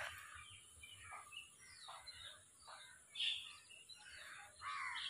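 Faint birdsong: scattered short chirps and calls, the loudest about three seconds in, over a steady high hiss.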